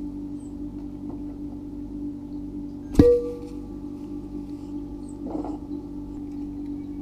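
Glass vase knocked once by a cat about three seconds in, ringing briefly with a clear bell-like tone, over a steady low hum. A soft brush against the glass comes a little after five seconds.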